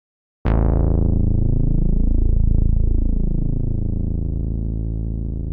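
A synthesizer bass note from a Korg EX-800 module starts suddenly about half a second in. Its bright attack dulls within a second, and it then holds as a deep, sustained tone whose overtones slowly swirl and beat, fading gradually.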